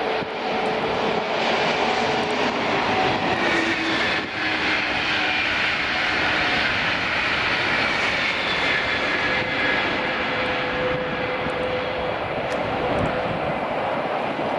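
A high-speed electric passenger train passing at speed: a steady rush of air and wheels on the rails, with faint tones sliding slowly downward.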